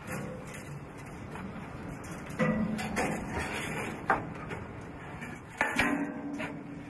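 Boots and hands knocking on the steel rungs and frame of a fire-tower ladder as someone climbs down it: irregular metallic clanks and creaks, the loudest knocks a little over two seconds in, about four seconds in and near the end.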